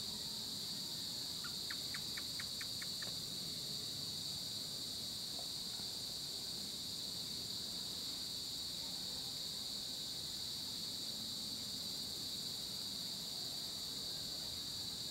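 Steady, high-pitched chorus of insects, with a short run of about seven quick chirps about two seconds in.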